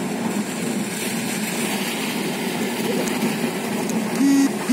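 Strong dust-storm wind rushing over the microphone. A vehicle horn honks briefly near the end.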